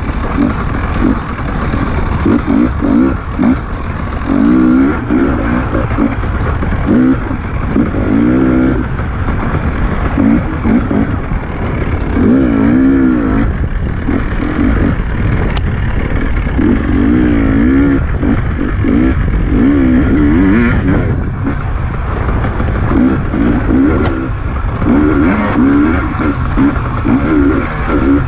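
Enduro motorcycle engine revving up and down over and over as the bike is ridden, the throttle opening and closing every second or two, over a steady low rumble.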